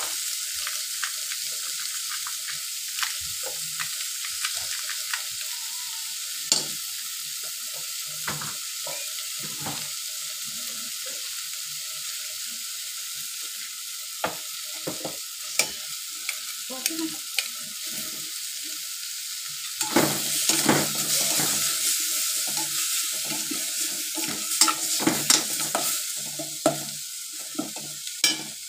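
Chicken pieces sizzling as they fry in a stainless steel pot, with a metal spatula scraping and clinking against the pot. The stirring grows busier and louder for several seconds from about two-thirds of the way through.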